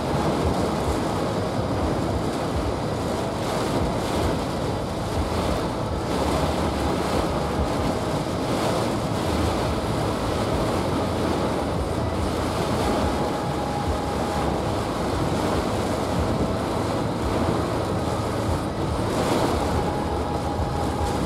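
Heavy rain on the roof and windshield of a moving vehicle, with tyre noise on the flooded road, heard from inside the cabin as a steady loud rush.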